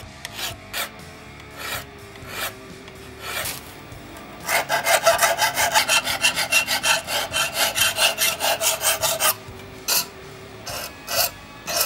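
Half-round double-cut bastard file rasping across the annealed coil-spring steel of a knife blade as the false edge is cut. There are a few slow, separate strokes at first, then a fast run of about four to five strokes a second for about five seconds in the middle, then slower strokes again near the end.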